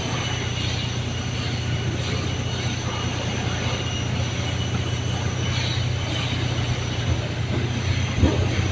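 Boom lift's engine running steadily with a low hum, and a brief knock near the end.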